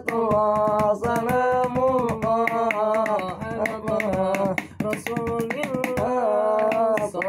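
Male singing of an Islamic sholawat, held and bending sung notes, over a rhythm of quick hand slaps drummed on a plastic motorcycle helmet.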